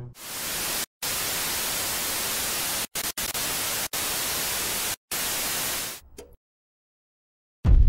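Television static sound effect: loud, even white-noise hiss that drops out for split seconds several times, stops about six seconds in, and is followed by a short silence. Deep bass of music kicks in at the very end.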